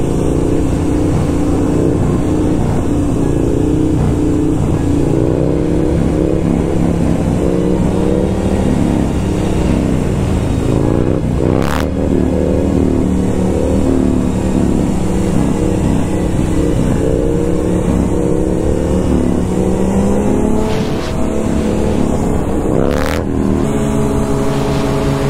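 Sport motorcycle engines running at road speed under wind rush on a helmet camera. The engine note rises and falls with the throttle, with two brief sharp clicks, one about halfway through and one near the end, and it settles into a steadier tone at the very end.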